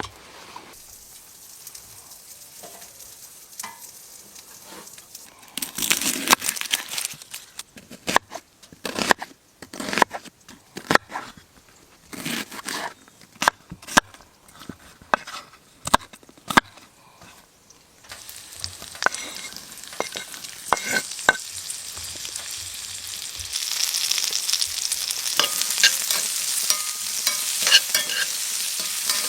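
Chopped chorizo frying in a small pan. Sharp clicks and scrapes of a utensil against the pan come through the middle of the stretch, then the sizzling builds and is loudest near the end.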